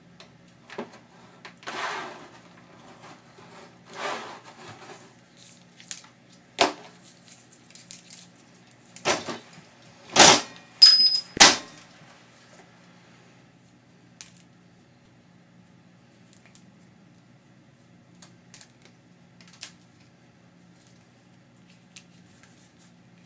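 Scattered scraping, rustling and clicking as the plastic insulation is scored and pulled off 14-gauge copper wire by hand with a knife and a stripper. About halfway through comes a cluster of sharp metal clicks with a brief ring.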